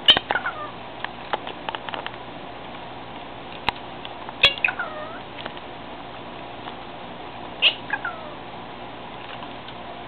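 Indian ringneck parakeet giving short calls that slide steeply down in pitch, three times, with a few light clicks in between.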